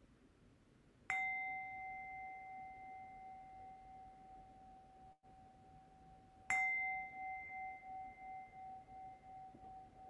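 Meditation bell struck twice, about five seconds apart, each strike ringing on in a long fading tone; the second rings with a slow, wavering pulse as it dies away. The bell marks the close of the sitting meditation.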